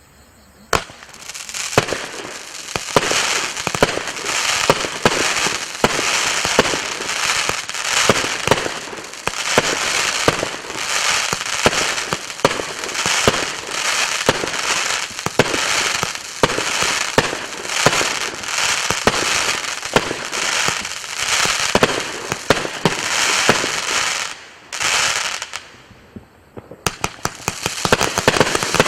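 A Wolff 'Jackhammer' 105-shot, 30 mm compound firework cake firing in rapid succession. A dense stream of launch shots and bursts swells about once a second. Near the end it pauses briefly, then comes back with a quick run of sharp cracks.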